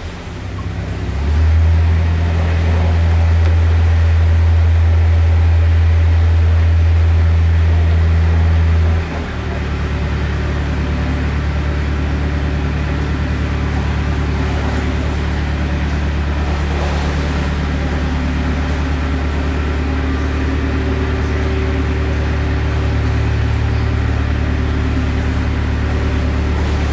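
A narrowboat's diesel engine running steadily with a low drone, heard inside a brick canal tunnel. The engine note dips just at the start, then changes about nine seconds in, settling into a slightly different steady drone.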